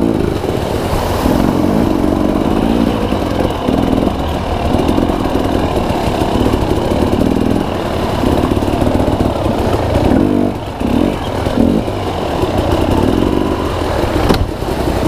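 Dirt bike engine revving in repeated bursts of throttle, the revs dropping back between bursts.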